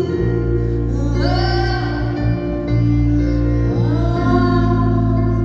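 Wordless female vocal swooping up into long held notes, about a second in and again near four seconds, over sustained keyboard chords and bass, from a rock band playing live through a theatre PA.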